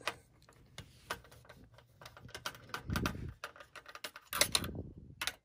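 Irregular small clicks and rattles of a DVD player's plastic tray mechanism being handled and worked apart, with a duller handling knock about three seconds in and a louder run of clicks about four and a half seconds in.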